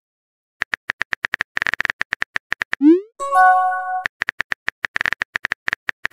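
Texting-app sound effects: a quick run of keyboard-tap clicks, about ten a second, then a short rising pop and a brief chime as a message bubble appears, about three seconds in. The tapping clicks then start again.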